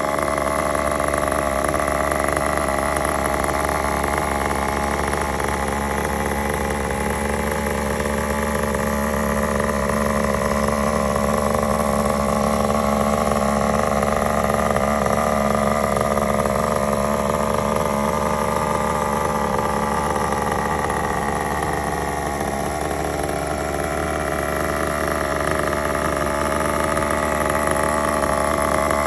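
Small nitro glow engine of a Tamiya Terra Crusher RC monster truck running steadily without stopping, its pitch drifting slowly up and down.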